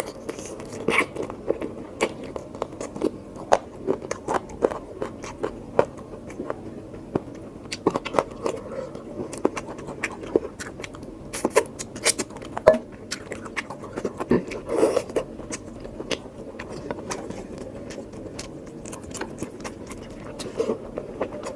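Close-miked eating of oily mutton curry: wet chewing with many irregular lip smacks and mouth clicks.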